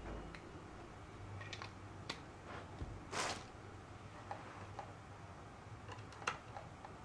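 Faint handling sounds of a desk lamp's power cable being unwrapped from plastic packaging and plugged into the lamp base: scattered small clicks, a brief crinkle about three seconds in, and a sharp click near the end as the plug goes in.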